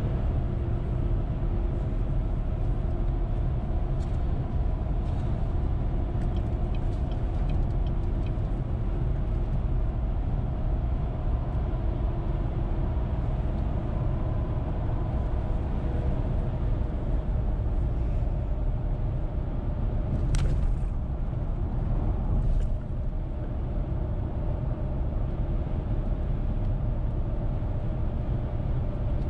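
Steady road and tyre noise with engine hum from a car cruising on the interstate, heard from inside the car. A brief sharp sound comes about two-thirds of the way through, with a fainter one shortly after.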